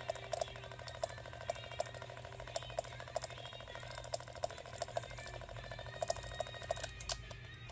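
A battery-powered light-up spinner toy running, its small motor and plastic spinning head giving a fast steady rattle with louder irregular clicks over it. The rattle stops shortly before the end.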